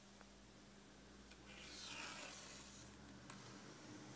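Near silence with a faint rubbing rustle that swells about halfway through, and one light click near the end.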